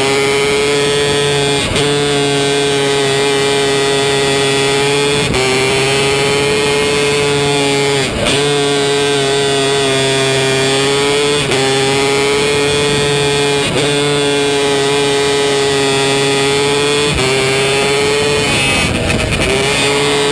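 A 270 micro sprint car's engine heard onboard at racing speed, its high note holding steady down the straights and dipping briefly about every three seconds as the throttle is lifted for each corner, then picking straight back up.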